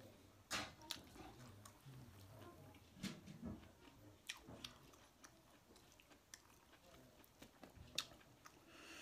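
Quiet close-miked chewing and mouth sounds of a man eating pig head meat and white rice by hand, with scattered sharp wet clicks, the loudest about three seconds in and near the end.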